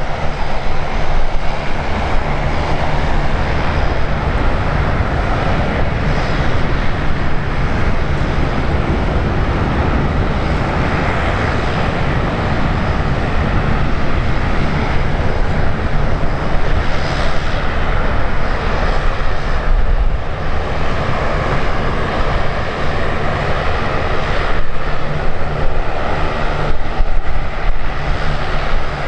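Airliner engines running loud and steady as an aircraft moves at the airport, a dense roar with heavy low rumble.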